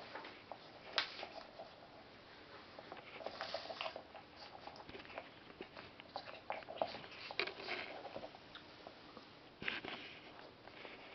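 A cat biting and chewing on a rubber dust-blower bulb, with faint scattered clicks and small rustles.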